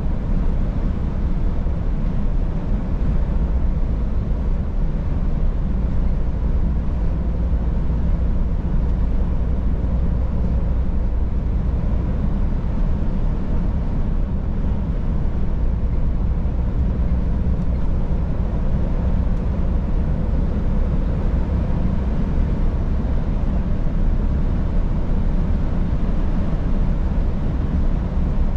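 Scania S500 truck's 13-litre inline-six diesel running with a steady, even low drone, mixed with tyre and road rumble as the truck drives along.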